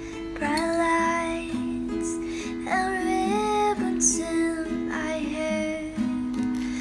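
Background song: a woman singing over strummed guitar, her voice coming in about half a second in.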